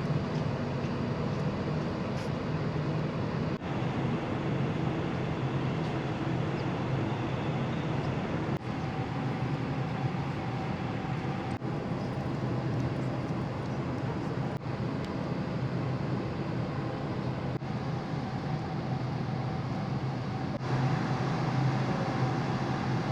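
Steady low drone of a large car ferry's engines and machinery under way, with a faint steady whine above the hum.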